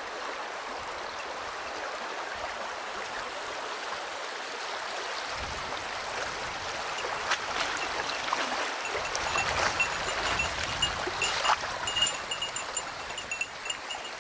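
Shallow stream running over stones. About halfway through, footsteps on the stones and gravel join it, with knocks and clicks. In the last few seconds a small bell jingles lightly in time with the walking.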